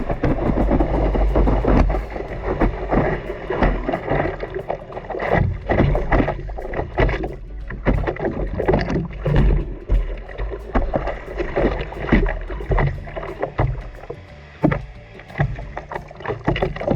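Seawater splashing and churning in irregular bursts, with a heavy low rumble of wind and surf buffeting the microphone.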